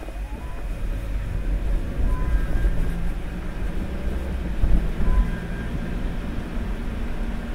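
A car driving on a wet road: a steady low rumble of engine and tyres that grows louder over the first second. Two faint brief squeaks come about three seconds apart.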